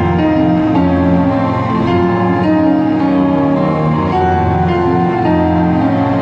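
Instrumental music of long held notes, with no beat.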